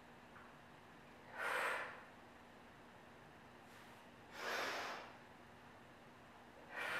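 A woman's forceful exhales through the mouth, three short breathy whooshes about three seconds apart, the last near the end. They come from yoga breathing done with each movement, breathing out through the mouth and in through the nose.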